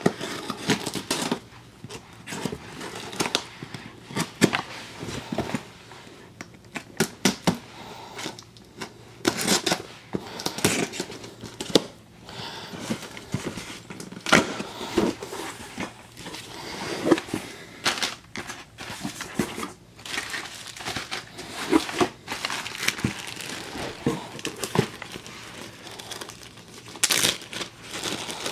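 Hands opening a taped cardboard box: tape tearing and cardboard scraping and rustling in irregular bursts. Near the end a clear plastic bag crinkles as it is handled.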